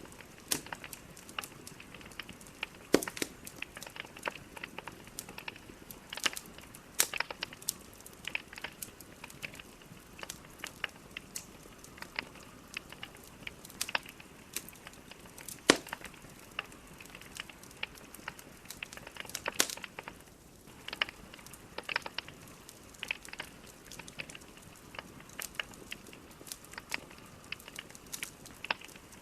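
Wood fire burning in a fireplace, with irregular sharp crackles and pops of the logs over a faint steady hiss.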